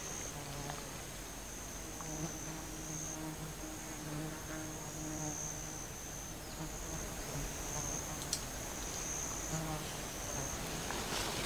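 Insects: a steady high-pitched trill with brief breaks, over a low buzz that comes and goes in short stretches.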